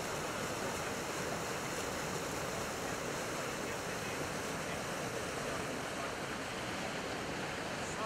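Mountain stream rushing over rocks and small cascades: a steady, even rush of water.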